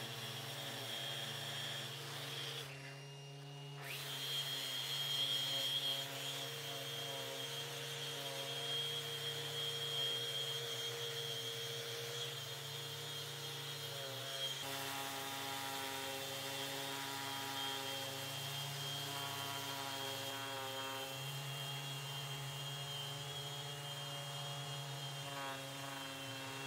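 Random orbital sander running steadily on an epoxy-and-wood tabletop, with a high whine over a lower hum. The tone shifts a couple of times.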